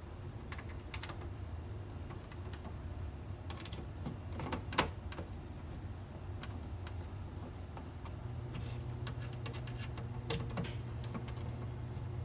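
Scattered light clicks and taps of plastic humidifier parts being handled and fitted, with one sharper click about five seconds in, over a steady low hum.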